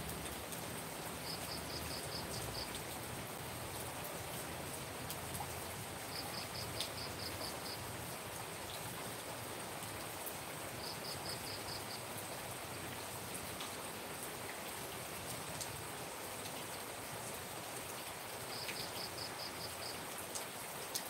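Steady rain falling. Four times a short run of quick, high-pitched clicks, about five a second, rises over it, and a thin steady high tone runs underneath.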